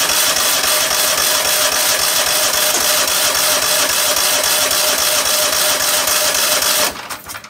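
Cub Cadet riding mower's electric starter cranking its flooded engine, a steady run of about seven seconds that stops abruptly near the end.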